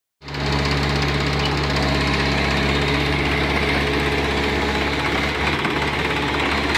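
Sonalika DI-745 tractor's diesel engine running steadily at a constant speed, a low even chugging with no revving.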